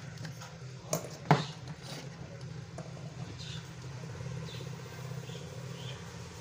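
Two sharp clicks about a second in, the second the louder, as the satellite receiver's power is switched on. A steady low hum runs underneath, and a few faint high chirps come later.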